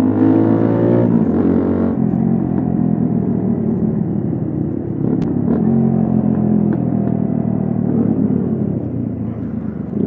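Keeway Cafe Racer 152's single-cylinder engine through an Akrapovic full exhaust system with the dB killer fitted, heard from the rider's seat while riding. The engine pitch rises briefly at the start, drops about two seconds in, then falls slowly and picks up again with the throttle.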